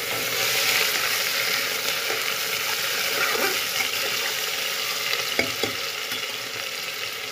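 Chopped onions sizzling in hot oil in an aluminium pressure cooker as they begin to fry, stirred with a metal ladle that knocks against the pot a couple of times about five seconds in.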